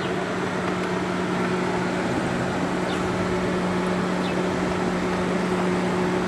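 Peugeot 307's electric radiator cooling fan running steadily with the ignition on, a constant hum with no change in speed. The fan has been bypassed so that it runs continuously.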